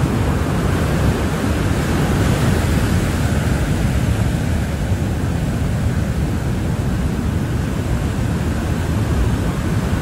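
Heavy surf of a rough sea breaking continuously, a steady dense roar, mixed with wind rumbling on the microphone.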